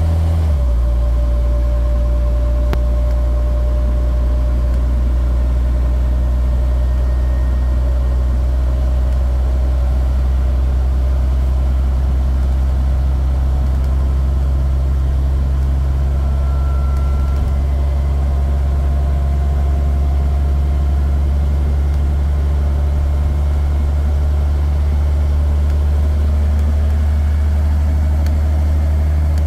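Leyland Olympian double-decker bus's diesel engine running at a steady speed, a loud, even low hum heard from inside the upper deck.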